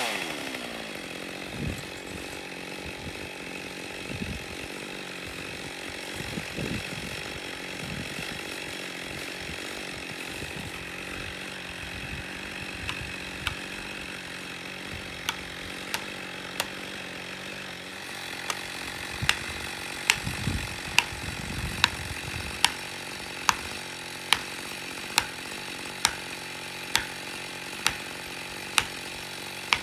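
Chainsaw idling steadily after being revved and let off. Over the second half a sharp tick repeats about once a second, louder than the idle.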